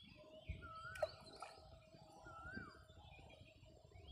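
Faint birdsong: a short rising-and-falling whistle repeated about three times, with fainter high chirps from other birds.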